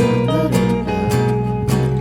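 Instrumental music: strummed acoustic guitar chords over steady bass notes, with a held melody line above.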